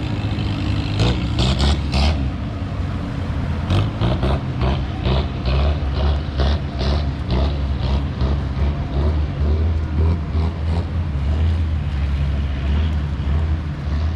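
Engines running with a steady low rumble, overlaid by many short clatters and knocks.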